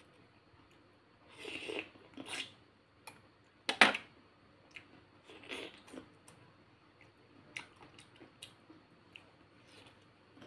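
Close-up sounds of biting into and chewing a peeled golden kiwi: a few wet, squishy bites between about one and a half and six seconds in, the loudest near four seconds, then softer mouth clicks while chewing.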